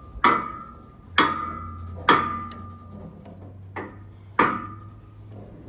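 Hammer striking a brass drift set in a hydraulic cylinder's gland nut, driving the nut round to unscrew it: five ringing metal blows about a second apart, the fourth lighter.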